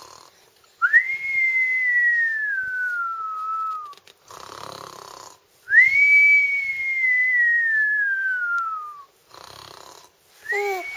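A person imitating a cartoon snore. Each snore is a short rasping in-breath followed by a long whistled out-breath that jumps up and then slides slowly down in pitch over about three seconds. It comes round twice, and a third whistle starts near the end.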